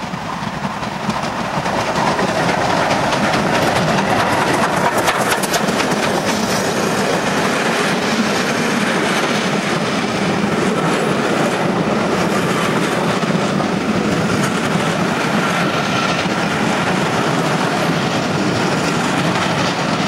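BR Standard 2-6-4T steam tank locomotive and its train of coaches passing close by at speed, the wheels clattering over the rail joints. The sound swells over the first couple of seconds and then stays loud and steady, with a run of sharp clicks a few seconds in.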